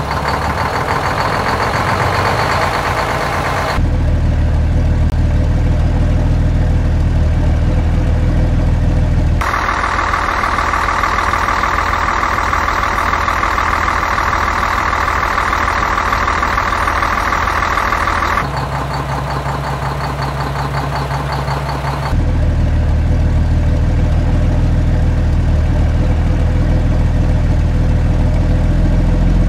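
Steady truck engine sound laid over small plastic toy trucks, idling and running. It switches abruptly to a different engine sound several times.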